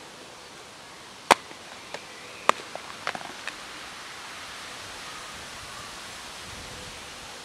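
Plastic food tub being handled and set down on a stone wall: two sharp clicks a little over a second apart, then a quick run of smaller clicks, followed by a steady outdoor hiss.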